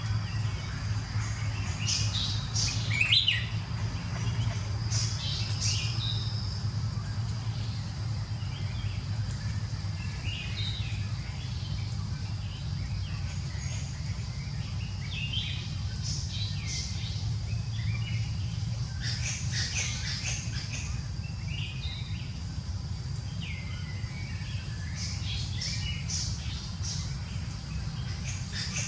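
Birds chirping in short clusters every few seconds, over a steady low rumble and a thin, steady high tone.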